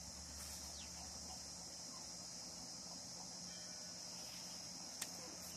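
Faint, steady high-pitched chirring of insects, with a few light clicks and one sharper click about five seconds in.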